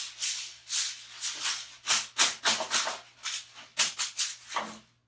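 Aluminum foil crinkling and rustling in quick, irregular bursts as it is pressed and folded down over a metal cookie sheet.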